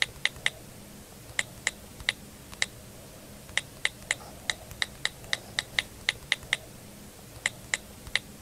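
Keyboard-typing sound effect: about twenty sharp key clicks in irregular runs with short pauses, over a faint steady hum.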